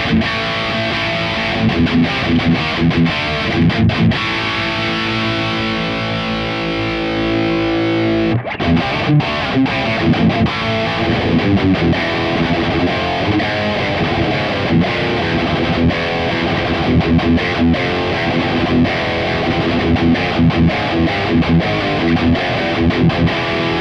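High-gain distorted electric guitar played direct through a Mooer Brown Sound preamp pedal's built-in cab sim: riffing, a chord left ringing about four to eight seconds in, then fast, choppy riffing. The tone is really muffled, short of high end, typical of this cab sim.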